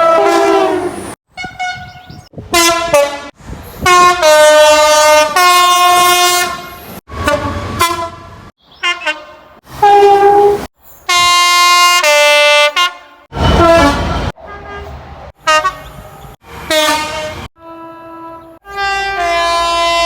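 A rapid run of British locomotive horns, about a dozen separate blasts cut one after another, several stepping between two or three pitches. The longest sounds for about three seconds in the middle.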